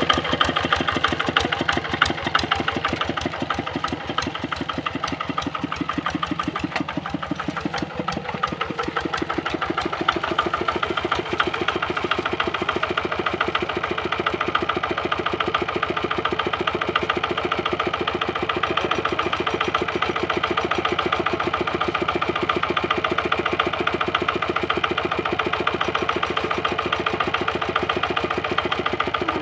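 Kubota RD65 single-cylinder diesel on a two-wheel hand tractor, running steadily with an even, rapid beat of firing strokes.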